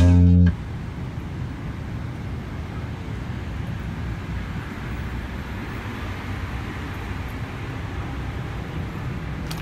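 Steady low drone of a jet airliner's cabin in flight: engine and airflow noise, even throughout. A bass guitar note rings briefly at the very start and stops.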